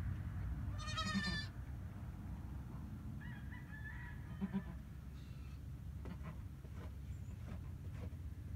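Newborn goat kid bleating once about a second in, a high, quavering cry, with a fainter call a few seconds later.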